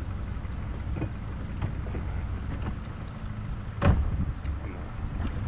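Low steady rumble with one sharp knock about four seconds in.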